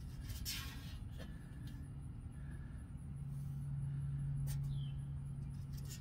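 Outdoor unit of an old Gibson R22 heat pump running with a steady low hum that grows louder about halfway through. A couple of faint clicks come early on.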